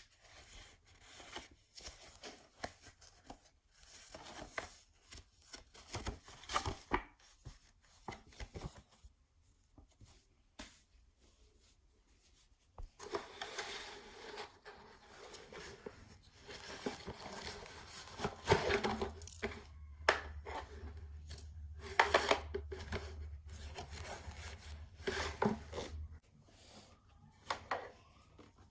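Packaging being torn open and handled: irregular tearing and rubbing with many sharp clicks and knocks, busiest in the second half.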